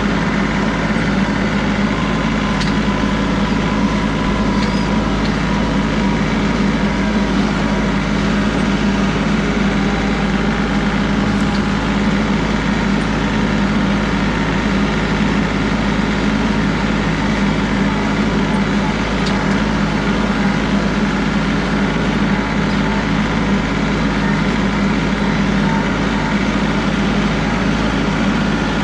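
John Deere 3038E compact tractor's three-cylinder diesel engine running at a steady speed, with no revving up or down.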